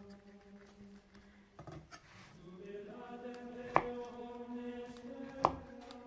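Chef's knife cutting into a dense fruitcake, with two sharp knocks in the second half as the blade meets the wooden cutting board. A quiet, held chant-like singing tone runs underneath.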